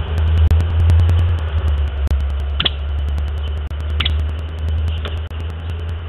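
A steady low rumble with a faint regular ticking over it. Three short, sharp bird calls cut through it, about two and a half seconds in, about four seconds in and, fainter, near five seconds.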